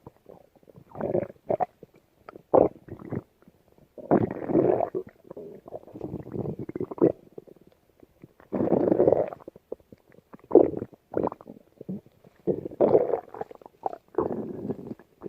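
Stomach rumbling and gurgling in irregular bouts: longer growls of about a second alternate with short, sharp gurgles, with brief pauses between.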